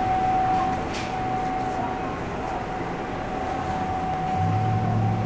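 Supermarket background noise: a steady mechanical hum with a constant high-pitched whine, and a lower hum growing stronger about four seconds in.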